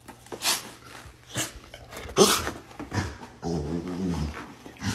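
Black Labrador grumbling and groaning in short bursts, with a longer, drawn-out groan about three and a half seconds in.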